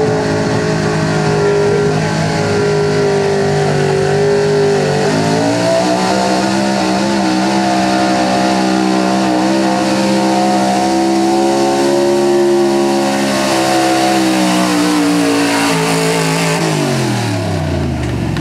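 Square-body Chevrolet 4x4 pickup's engine running hard at full throttle while it drags a weight-transfer pulling sled. The revs step up about five seconds in and hold high, then sag and drop away steeply near the end as the pull winds down.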